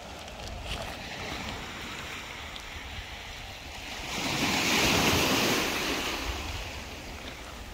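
Sea surf washing onto a stony beach, with one wave swelling up about four seconds in and slowly drawing back. Wind rumbles on the microphone underneath.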